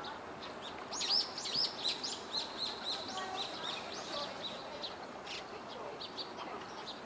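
Eastern spot-billed duck ducklings peeping: a quick run of short, high chirps starting about a second in and thinning out after about five seconds, with a few scattered peeps near the end.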